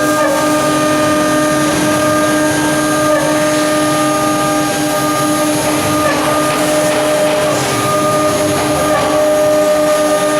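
A 9 kW HQD spindle on a CNC router running steadily while it cuts, a high multi-toned whine over rough cutting noise. The pitch dips briefly a few times, as the cutting load changes.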